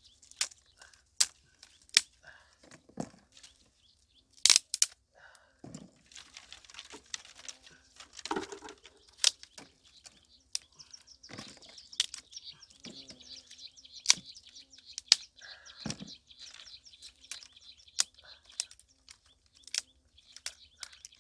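Dry sticks and twigs snapping sharply and irregularly as they are broken by hand, with dry brush rustling and scraping as it is dragged and piled. A steady high hiss runs underneath through the second half.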